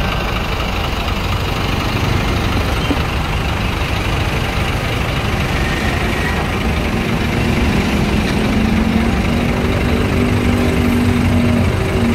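Large diesel coach bus engine idling steadily close by, with a steady humming tone coming in about halfway through.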